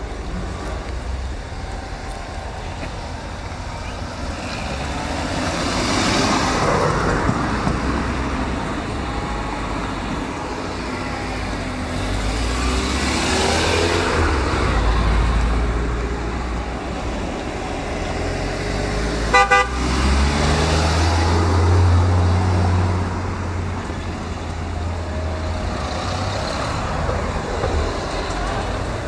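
Fiat Coupé cars driving past one after another, the engine sound swelling and fading as each one goes by. A short car-horn toot sounds about two-thirds of the way through.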